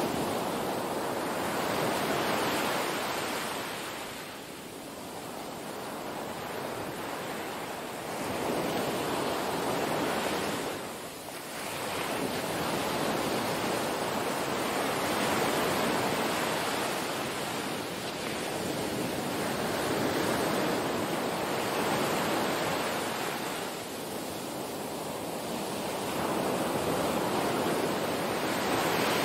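Gentle surf washing onto a sandy beach, the rush of water swelling and easing every few seconds, with some wind on the microphone.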